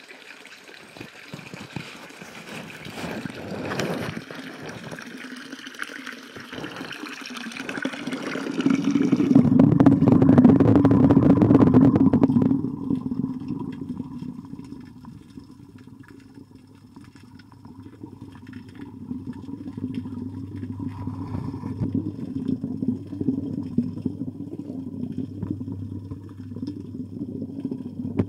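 Water pouring and splashing into a koi pond from an inlet pipe, heard in open air at first. About nine seconds in it swells into a loud, dull rush as the camera goes under the surface. From then on it is a low, muffled underwater rumble with a faint steady hum.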